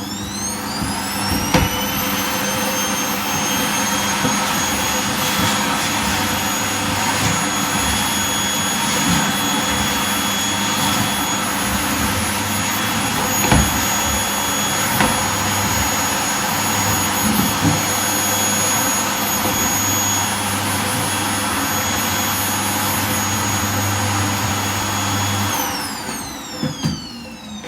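Vacuum cleaner switched on, its motor whine rising to speed, then running steadily while scattered clicks and rattles sound as small plastic beads are sucked up. It is switched off near the end and the whine falls away as the motor winds down.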